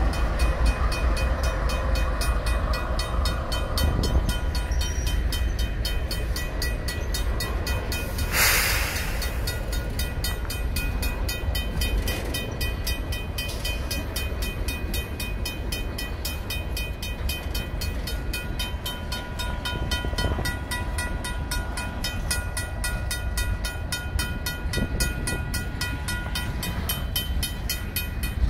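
Freight train passing over a grade crossing: locomotives and then loaded tank cars rumbling along the rails, while the crossing's RACO mechanical bell rings in rapid, even strokes. A short hiss comes about eight seconds in.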